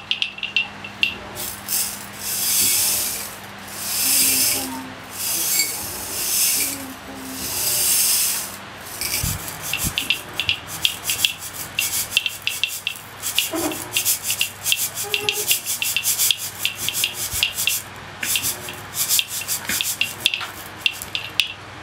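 A metal tube shaker shaken: about four slow, swelling swishes of rattling grains, then quicker rhythmic shaking with sharp clicks through the rest.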